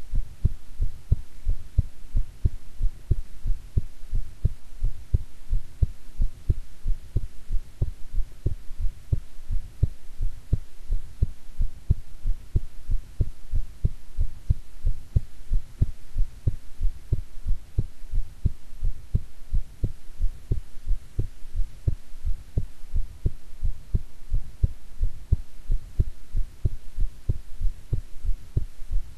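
A woman's heartbeat heard close up through the chest: steady, regular low thumps with a faint hum underneath.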